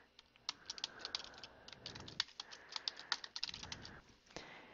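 Typing on a computer keyboard: a quick, uneven run of key clicks as a short phrase is keyed in.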